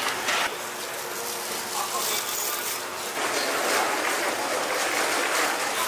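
Market stall ambience: indistinct background voices over a steady hiss, growing louder from about three seconds in.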